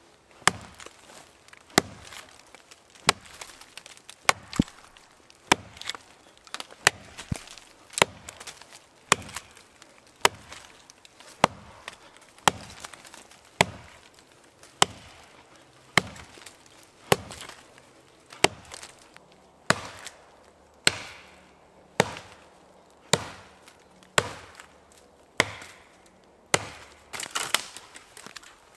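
Axe chopping into the trunk of a dead pine tree: a steady run of sharp blows, about one a second, as the axe head bites into the wood to cut the felling notch.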